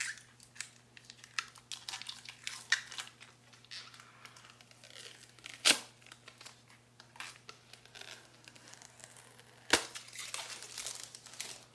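Plastic cover crinkling and tearing as it is peeled off the back of a new laptop battery, in many short crackles, with two sharp snaps, one about six seconds in and a louder one near ten seconds.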